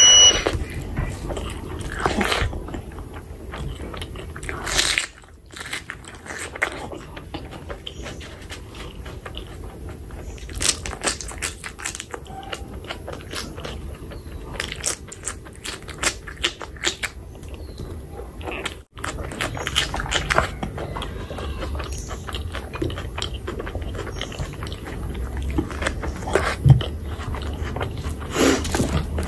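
Close-miked eating sounds: chewing and biting mouthfuls of rice and oily chicken skin curry, with many short wet clicks and crunches. There is also the squelch of a hand mixing rice into the curry.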